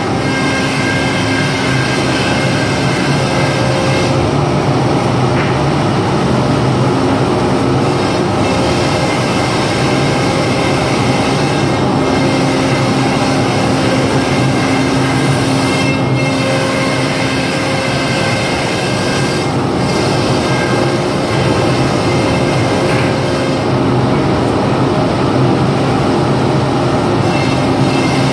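Holz-Her Eco-Master 7120 CNC router machining a sheet panel, its spindle and dust extraction making a loud, steady machine noise. The pitch of its hum shifts every few seconds as the head moves.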